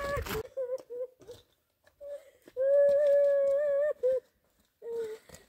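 A high voice humming a slow, wordless melody: a few short notes, then a long held note about two and a half seconds in, and another held note starting near the end.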